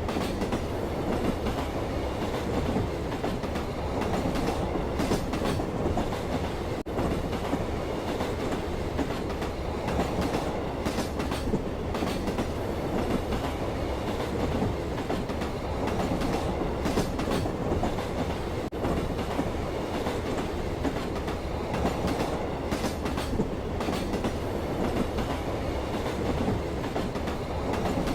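Train car running along the track at a steady speed, heard from on board: a continuous low rumble of wheels on rail with scattered clicks of the wheels passing over rail joints.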